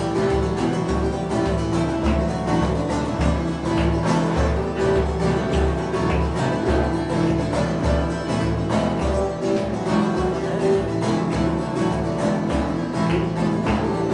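Instrumental passage on a bağlama (long-necked Turkish saz) and an acoustic guitar, plucked and strummed with a steady low beat.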